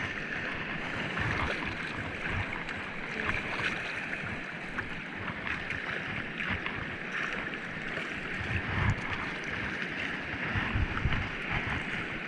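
Sea water washing and splashing around rocks, with wind buffeting the microphone.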